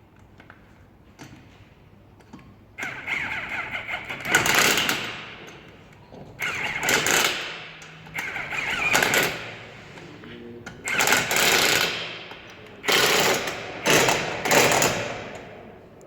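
Pneumatic impact wrench tightening wheel lug nuts after a tyre change, rattling in about six short bursts of one to two seconds each.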